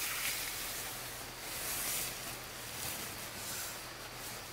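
Soft rustling hiss of tent fabric and bedding as a person shifts about inside a small dome tent, swelling and fading irregularly.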